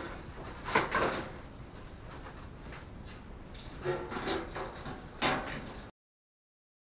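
Cardboard packaging scraping and rustling, with a few sharp knocks, as a steel Mini boot floor panel is worked out of its box. The sound cuts off abruptly near the end.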